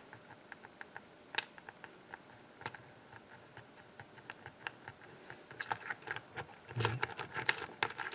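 Small metallic clicks of a hook pick lifting the pin stacks in a Sargent pin-tumbler lock under light tension. The clicks are sparse at first, then come fast and close together from about five and a half seconds in.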